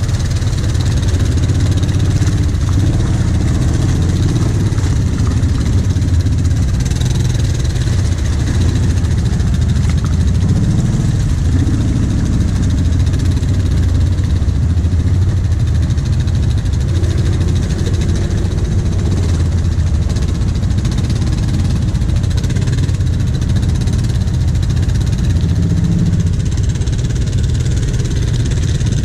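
Quad (ATV) engine running steadily at low throttle while crawling along a rutted mud trail.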